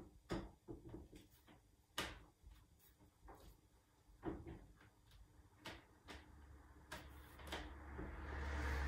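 Clear hard-plastic laptop case shell clicking and knocking as it is pressed onto a MacBook Air lid, in irregular single clicks. Near the end there is a rising rustle of handling.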